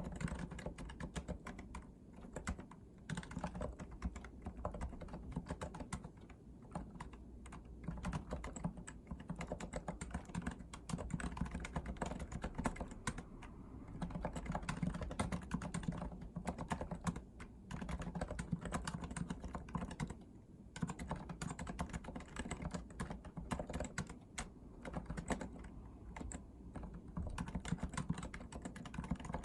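Continuous typing on a REALFORCE R2 PFU Limited Edition keyboard with Topre electrostatic capacitive switches: keystrokes in quick succession, broken by a few short pauses.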